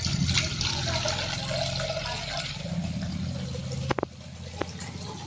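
Water running into a cooking pot for about four seconds, thinning out toward the end, followed by two light knocks.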